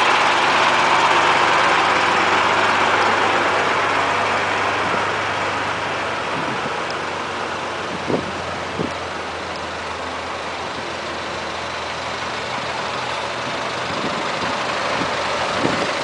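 Truck engines idling and running slowly close by, a steady low hum under broad engine and road noise that is loudest at first and eases off over the first few seconds. Two short knocks about eight seconds in.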